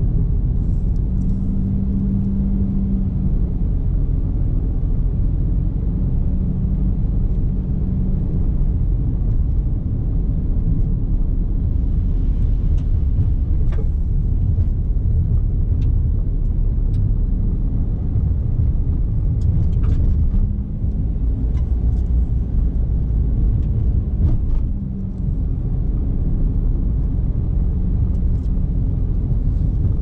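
Car driving: a steady low rumble of engine and road noise, with a low engine hum that comes and goes.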